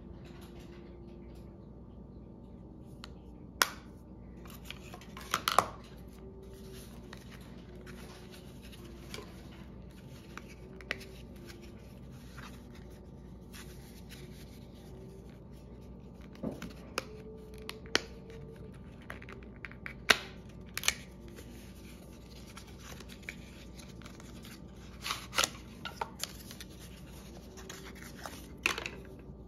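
Cosmetics packaging handled by hand: a cardboard box and a plastic NARS eyeshadow compact are turned over and unfolded, giving scattered sharp clicks and taps with light rustling in between.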